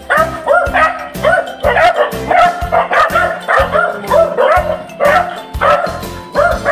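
Dogs barking repeatedly, two or three sharp barks a second: alert barking at someone arriving at the fence. Background music with a steady beat plays underneath.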